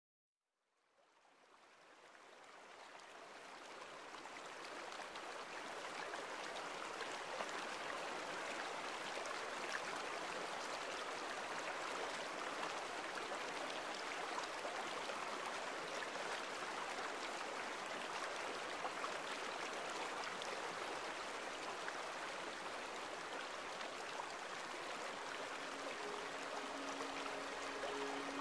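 Steady rushing water of a stream, fading in over the first few seconds. A few sustained music notes come in over it near the end.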